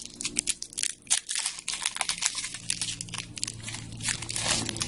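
Magic: The Gathering Return to Ravnica booster pack's shiny foil wrapper being torn open and crinkled as the cards are pulled out: a rapid, irregular run of sharp crackles.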